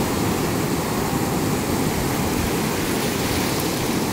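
Ocean surf washing in around the feet, with wind buffeting the microphone: a steady, even rush, heaviest in the low end.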